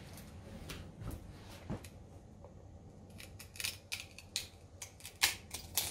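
Small sharp clicks and taps of a snapped hard drive being handled in the hands: a few faint knocks at first, then a quick run of clicks from about three seconds in, the loudest near the end.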